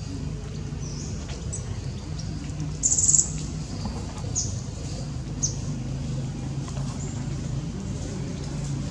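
Small birds chirping: short high calls every second or so, the loudest a brief rapid trill about three seconds in, over a steady low hum.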